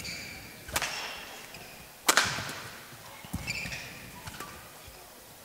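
Badminton rally: sharp racket strikes on the shuttlecock, two clear hits about a second and a half apart, the second the louder. Short high squeaks of court shoes on the floor come in between.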